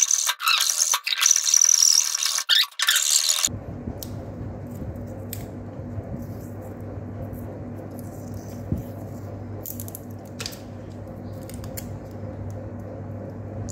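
A flat file rasping across the edge of a wooden speaker box in repeated strokes, stopping abruptly about three and a half seconds in. After that comes a steady low hum with a few faint clicks.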